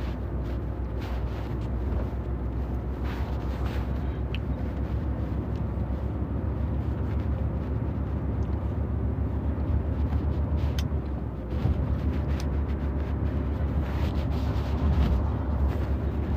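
Steady low rumble of a truck driving on the highway, heard from inside the cab: engine and road noise.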